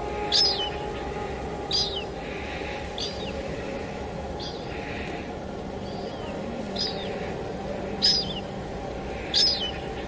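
A small bird giving short, high chirps that fall in pitch, about one every second and a half, over steady rain and a soft sustained background tone.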